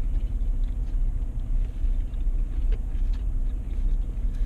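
Steady low rumble of a parked car's engine idling, heard inside the cabin, with a few faint small clicks.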